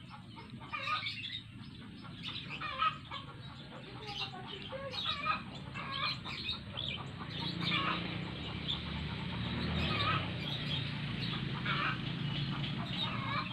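Chickens clucking in short, repeated calls, with a low steady hum building from about halfway through.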